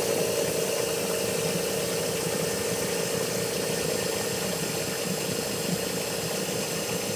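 Collet lathe running steadily, a steady whine over an even machine noise, while the tool faces off the end of an aluminium part and throws off chips.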